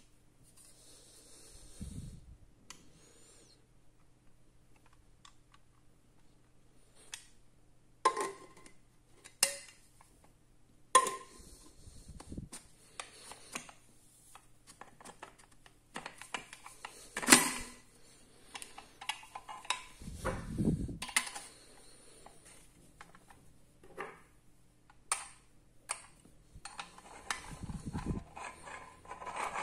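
Scattered clicks, knocks and clatters of hard objects being handled, with a few dull low thuds, over a faint steady hum.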